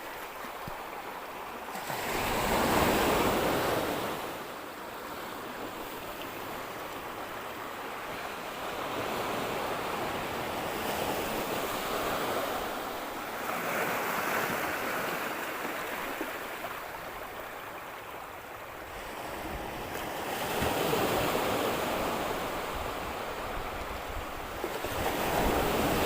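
Small sea waves washing onto a beach, rising and falling in slow surges every several seconds.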